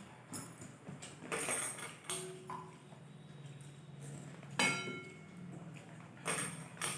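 Metal dishes and utensils clinking a few times, one clink a little past halfway ringing on briefly, over a faint steady low hum.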